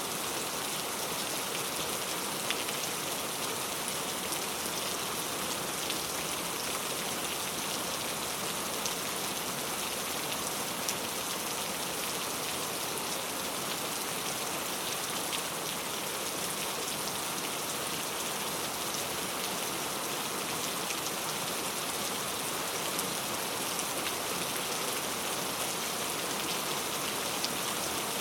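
Steady rain falling, an even hiss with scattered drops ticking on hard surfaces.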